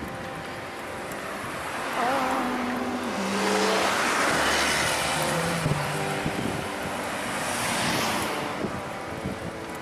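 Cars passing close by on a village street, their tyre and engine noise swelling about two seconds in and fading again, then another pass about eight seconds in. Soft background music plays underneath.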